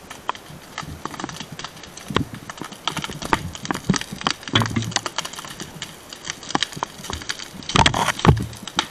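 Dry grass and brush burning, crackling and snapping in irregular sharp pops, with a few louder bursts of snapping and rustling, the loudest near the end.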